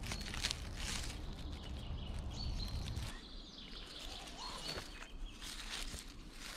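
Dry leaf litter and twigs rustling and crackling on the forest floor as a hand and feet move through it, with a few short bird chirps in the background. A low rumble runs under the first three seconds and stops abruptly.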